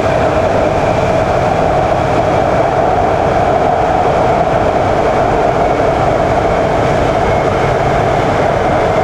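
Shenzhen Metro Line 14 train running at speed: a steady rolling rumble of wheels on rail, with a faint steady whine.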